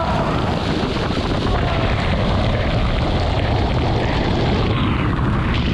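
Storm simulator blasting artificial typhoon wind and water spray, a loud steady roar with heavy wind buffeting on the microphone. The high hiss thins out near the end.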